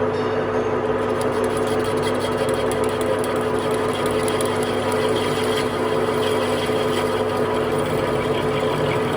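An electric shop machine or power tool running steadily, a constant hum with a fine rattle over it.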